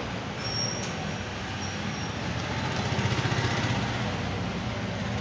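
A motor engine running steadily, like nearby traffic, with a low hum that grows louder about three seconds in.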